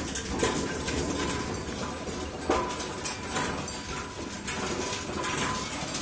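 Bullock carts moving along a tarmac road: the oxen's hooves clop irregularly and the carts' wooden spoked wheels rattle.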